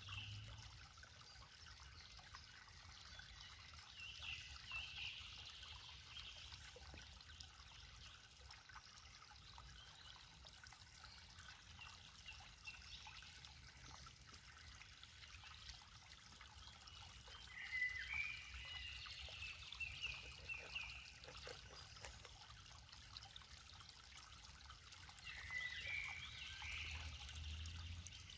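Faint trickle of water seeping through a beaver dam of branches and logs, with short high bird chirps a few times over it.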